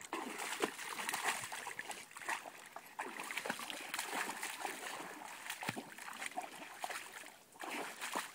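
A dog pawing and digging at shallow muddy water with its front feet, making quick irregular splashes and slaps, with a brief lull about seven seconds in.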